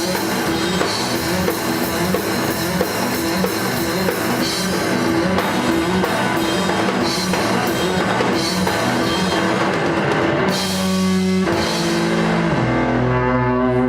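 Live rock band playing: a drum kit pounding under electric guitar and bass. About ten seconds in, the drumming thins out and the band holds long, ringing chords as the song winds toward its end.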